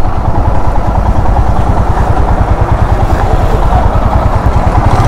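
Royal Enfield Himalayan's 411 cc single-cylinder engine idling with a steady, even low pulse.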